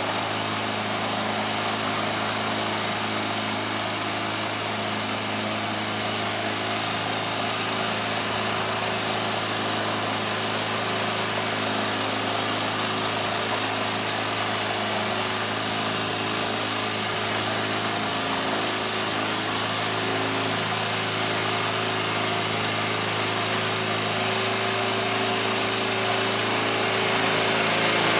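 Narrowboat engine running steadily at a slow cruising pace, a low even hum, growing a little louder as the boat passes under the bridge arch near the end. A small bird calls in short, high, falling chirps several times over it.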